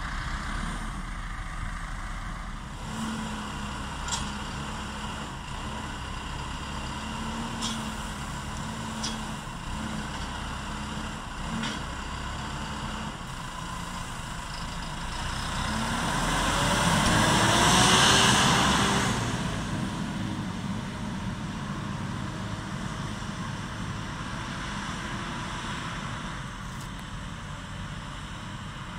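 Valtra tractor's diesel engine running steadily as it works with a front loader and bale forks, with a few light knocks early on. About two-thirds of the way through it swells to its loudest and the engine note bends as the tractor passes close by, then fades as it moves off across the field.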